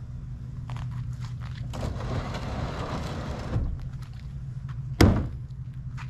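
Small boat on its wheeled transport cart being pushed: a stretch of rough rolling, scraping noise in the middle and a single sharp thunk about five seconds in, over a steady low hum.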